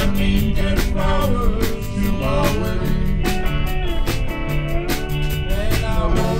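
Live rock band playing: electric guitars, bass guitar and drum kit keeping a steady beat, with a lead line that slides up and down in pitch over them.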